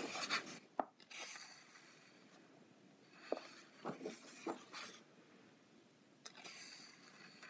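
Paper pages of a colouring book being turned by hand: soft rustles of paper, with a few light taps in the middle.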